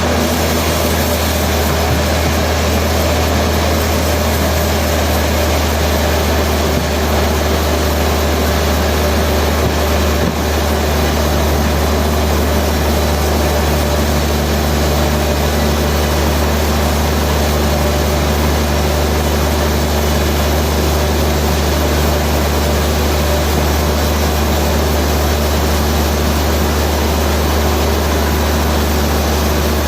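Heavy machinery running steadily: a constant low drone under an even mechanical hiss, with no change in load.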